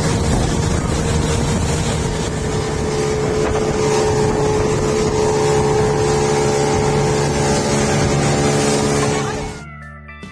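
An engine running steadily at speed under a loud rush of wind and travel noise, cutting off suddenly near the end as steel-guitar music comes in.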